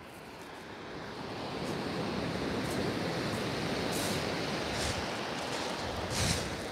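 Surf breaking and washing up a shingle beach, building over the first couple of seconds and staying loud. A few short hissing sounds come in the later seconds.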